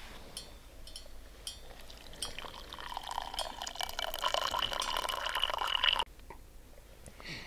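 Hot tea poured from a small metal camping pot into a ceramic mug: a steady splashing stream for about four seconds that stops abruptly about six seconds in, after a few light clicks.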